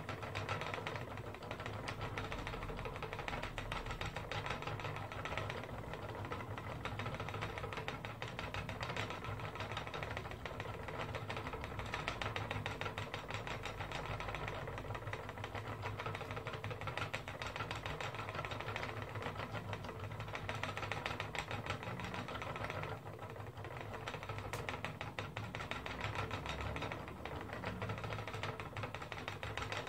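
Wooden spinning wheel turning steadily while wool is spun into yarn: a continuous mechanical whirr with a fast, even rattle.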